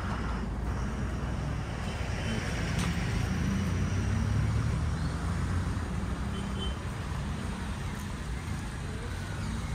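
Road traffic: a motor vehicle's engine running low and steady, swelling a little toward the middle and easing off as it passes.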